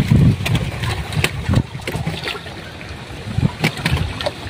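Water splashing and sloshing in plastic barrels as live gourami are handled, with several short sharp splashes scattered through, over a low rumble in the first second or so.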